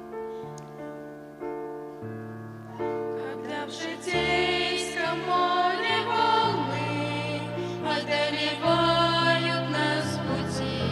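Hymn music: held keyboard chords open it, and about four seconds in a choir of voices begins singing over the accompaniment, noticeably louder.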